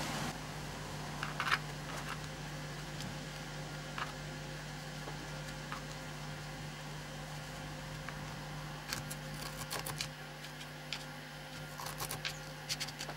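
Resin-bonded core sand being pressed by hand into a small plastic 3D-printed core box: scattered light clicks and scrapes, most of them near the end, over a steady low hum.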